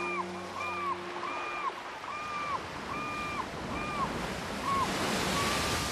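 Seagulls calling in a steady series, one short call about every two thirds of a second, over the wash of sea waves; the calls stop near the end as the surf grows louder.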